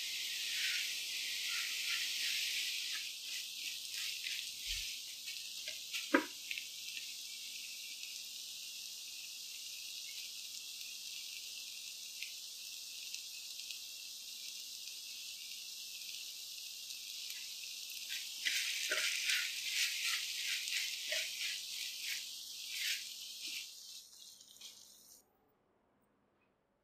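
Onion-tomato masala sizzling steadily in a nonstick pan, with a silicone spatula stirring and scraping through it in busy spells near the start and again about two-thirds of the way in. There is a single sharp knock about six seconds in, and the sound cuts off suddenly near the end.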